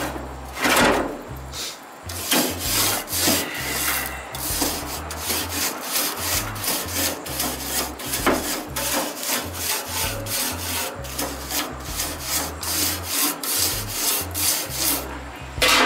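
Wooden-handled grill brush scrubbing back and forth across the metal grill grates, in a steady run of quick scraping strokes, about two to three a second, from about two seconds in.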